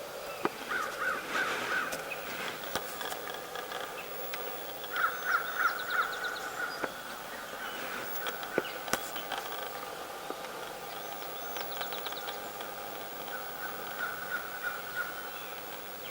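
Birds calling in three short runs of quick repeated notes, with a few faint clicks.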